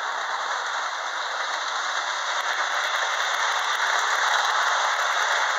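Lionel 8203 toy locomotive running on its track with seven cars in tow: a steady whir and rattle of the motor and the wheels on the metal rails.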